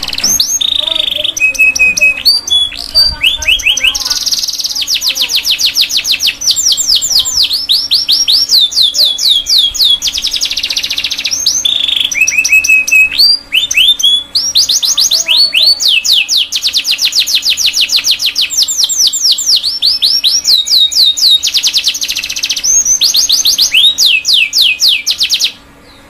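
Domestic canary singing a long, continuous song: fast rolls of rapid downward-sweeping notes, broken by a few steady held notes, with a short pause about halfway through and the song stopping just before the end.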